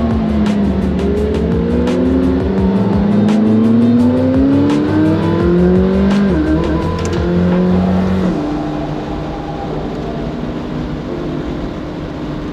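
Sports car engine under hard acceleration, its pitch climbing steadily through a gear and dropping at a gearshift about six seconds in, then running more evenly. Background music plays underneath.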